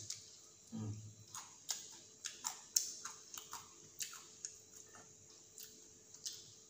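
Eating sounds of fried snack bites: irregular small crunches and clicks of chewing and handling the food, with a brief murmur about a second in.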